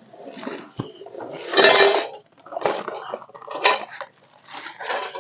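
Camping gear being handled, clattering and rustling in about five short bursts with small clinks, the loudest about two seconds in.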